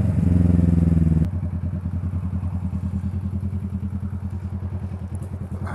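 Kawasaki motorcycle engine running under throttle, then about a second in the throttle shuts and the engine drops to a quieter, steady pulsing idle.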